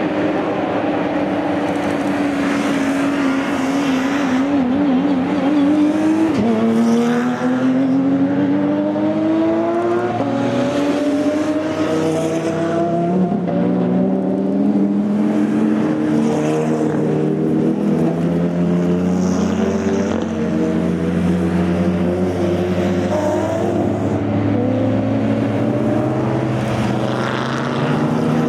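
Several race cars with open exhausts running at full throttle, their engine notes overlapping. The pitch climbs through the gears, with a sharp drop at an upshift about six seconds in and further climbing notes as more cars come through.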